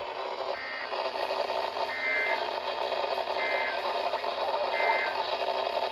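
EAS end-of-message data bursts on NOAA Weather Radio: four short warbling two-tone data bursts, about a second and a half apart, over steady radio hiss, signalling the end of the warning broadcast.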